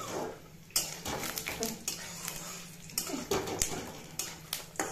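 Metal spatula scraping and knocking against a kadai while stirring peanuts frying in oil, a string of irregular clicks and taps.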